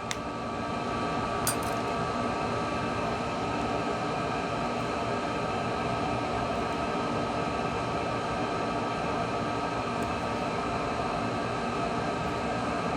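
Steady mechanical hum with hiss and a few faint constant tones, with one small click about one and a half seconds in.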